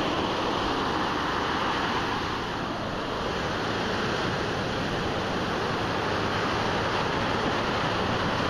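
Ocean surf breaking and washing up a sandy beach: a steady rush of water with no breaks.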